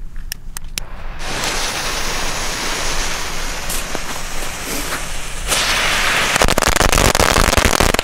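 A firecracker chain mat (MAT 210) is lit: a steady hiss from its burning fuse starts about a second in, and about five seconds in the mat goes off in a fast, dense crackle of small bangs that is loudest near the end.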